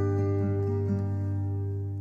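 Background music on acoustic guitar: a chord left ringing and slowly fading.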